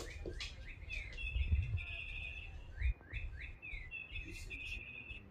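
Electronic chirping cat-toy ball giving off repeated bird-like tweets, each a quick falling chirp, with stretches of held high trilling, over low thumps as the cats bat it across the floor.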